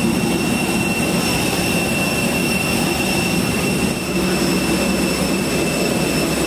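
Jet aircraft turbine running: a steady rushing rumble with a high, steady whine on top.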